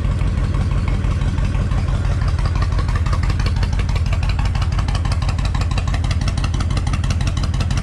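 Honda VTX1300 motorcycle's V-twin engine idling steadily.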